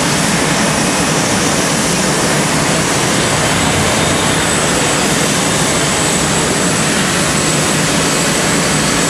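Steady jet engine roar of a Boeing 747-400 on its takeoff roll at full thrust, with a faint high whine coming in about halfway through.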